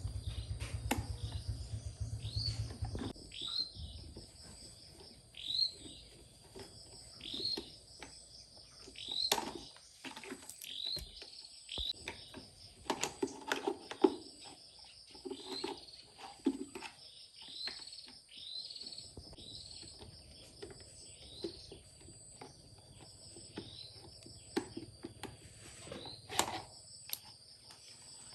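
A bird chirping over and over in short, high, down-sweeping calls about once a second, over a steady high-pitched insect drone. Scattered sharp knocks and clicks come and go, and a low rumble fades out about three seconds in.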